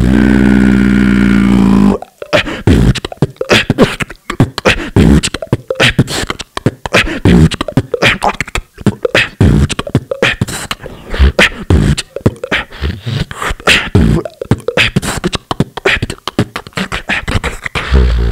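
Solo beatboxing into a handheld microphone through a PA: it opens with a loud held low note for about two seconds, then breaks into fast kick, snare and click patterns, with another held low note near the end.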